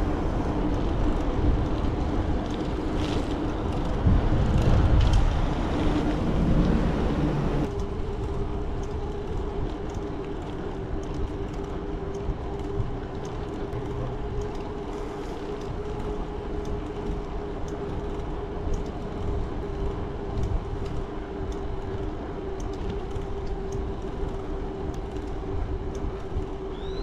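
Mountain bike rolling on pavement, picked up by a handlebar-mounted action camera. For the first several seconds low wind rumble on the microphone dominates. After an abrupt change about eight seconds in, a quieter steady hum from the rolling tyres and drivetrain carries on.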